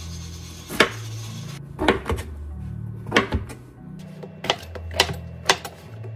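Kitchen knife chopping Korean zucchini and a king oyster mushroom on a cutting board: about ten sharp, irregular knocks of the blade striking the board. Background music with low held notes plays under it.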